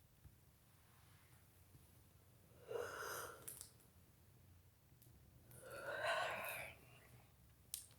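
A person yawning twice: a breathy yawn about three seconds in, then a longer one near six seconds, each lasting about a second.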